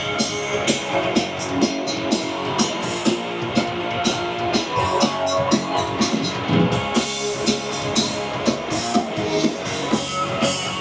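Live rock band playing amplified electric guitars over a drum kit keeping a steady beat, with regular cymbal hits.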